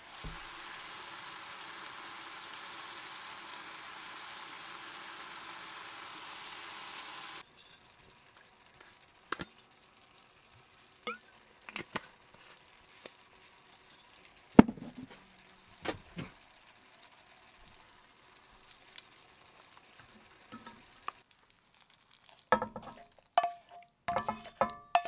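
Food frying in a pan: a steady sizzle that cuts off suddenly about seven seconds in. Scattered short knocks and clicks follow, and plucked music starts near the end.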